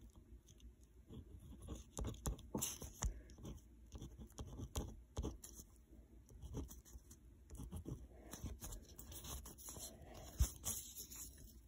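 Pen writing on paper: faint, irregular scratching strokes and light taps of the tip, with one sharper knock near the end.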